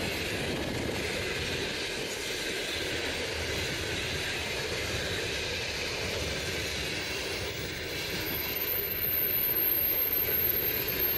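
Passenger train coaches rolling past: a steady rush and rumble of wheels on rail, growing louder near the end.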